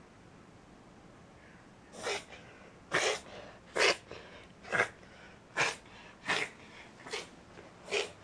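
A Shetland sheepdog reverse sneezing: a run of sudden, forceful inhalations through the nose, about eight of them at an even pace of a little over one a second, starting about two seconds in. Reverse sneezing is a spasm usually set off by allergies, irritants or excitement.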